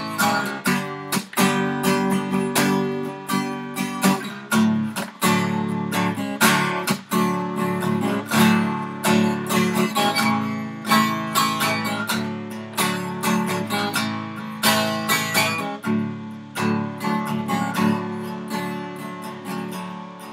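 Acoustic guitar strummed in a steady rhythm of chords, with no singing.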